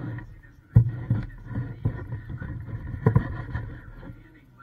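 Cut jackfruit being pried apart and turned by hand close to the microphone: irregular low knocks and rubbing, with a sharp knock about three-quarters of a second in.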